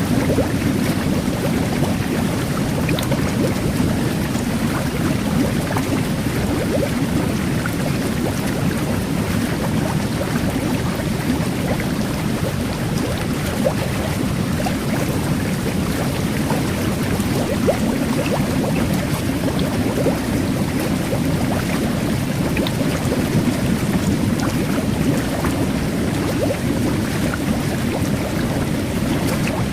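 Jet bath (whirlpool tub) churning water in a steady rush, with the fine fizz of carbonated-water micro-bubbles mixed in as many tiny pops.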